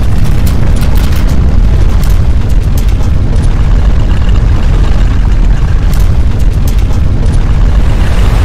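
Loud, continuous low rumble of earthquake shaking, with scattered sharp clicks.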